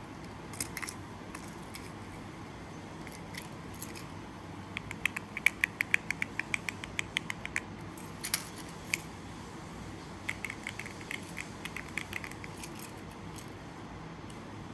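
Keystrokes on a mechanical keyboard fitted with keycaps, clacking: a few single clicks, then two quick runs of typing at about seven strokes a second, over a steady low hum.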